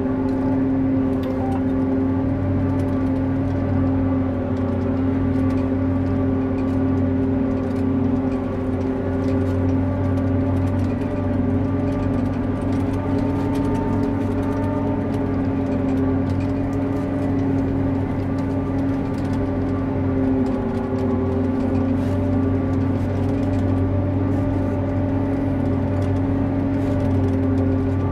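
John Deere 8800i forage harvester running steadily under load, heard from inside the cab: a constant engine drone with a steady machine whine over it.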